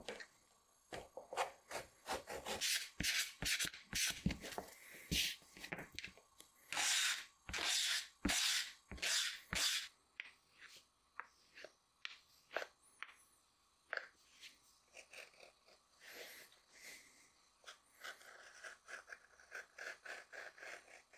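The leather sole edge of a handmade shoe is scraped by hand with a piece of glass, in quick rasping strokes. The strokes are loud and close together for the first ten seconds or so, then turn lighter and sparser, with small taps between them.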